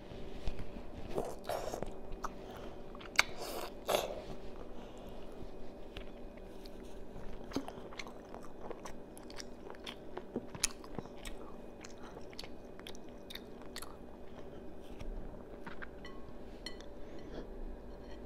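A young child chewing boiled seafood close to a clip-on microphone: wet mouth clicks and smacks scattered throughout, a few louder ones in the first four seconds, over a faint steady hum.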